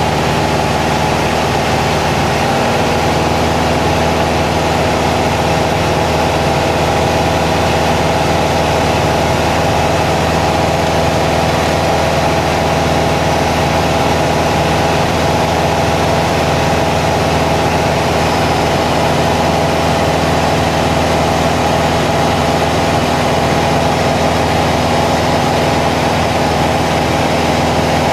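Aircraft cabin noise on a night landing approach: the engines drone steadily with a hum of several tones over a rush of airflow, unchanging throughout.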